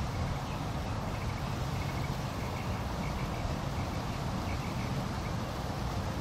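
Steady outdoor background noise with a low rumble, and faint, repeated high chirps that stop about a second before the end.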